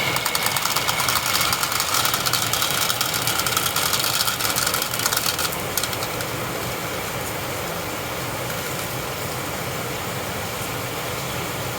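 Marbles rolling and clattering along a marble run, a dense stream of rapid clicks over a rolling rumble that stops about five and a half seconds in, leaving a steady hiss with a few faint clicks.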